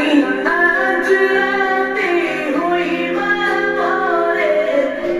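A song with a woman singing over instrumental backing, played through an Ahuja AU-68 horn loudspeaker (60 W, 16 ohm) driven by a TDA2050 amplifier. The sound is thin, with almost no bass.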